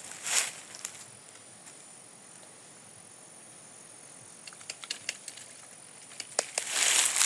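Footsteps and rustling through brush on a riverbank: a brief rustle just after the start, a quiet stretch, then scattered small snaps and clicks building to louder rustling near the end.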